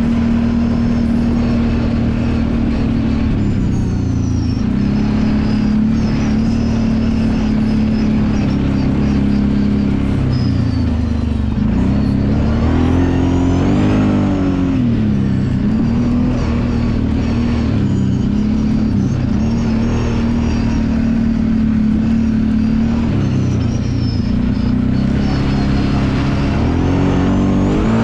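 Kawasaki Brute Force 750 ATV's V-twin engine running on a trail ride, its pitch rising and falling with the throttle, with a swell around the middle and another climb near the end.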